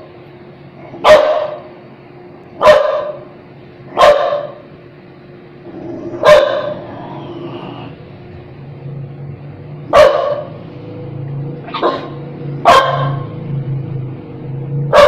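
A young dog barking: about eight single, short barks, one to four seconds apart, with two coming closer together near the end.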